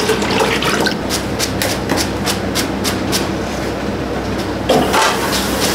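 Kitchen knife chopping green onions on a plastic cutting board in quick, even strokes, about four a second for a couple of seconds in the middle, over a steady low hum from the stove and exhaust hood.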